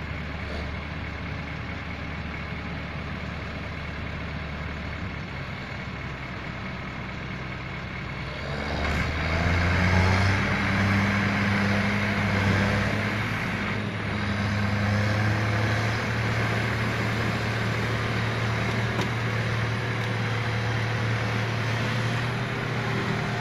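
Heavy diesel engines running steadily, then rising in pitch and getting louder about nine seconds in as the semi-truck pulls forward out of deep mud under load.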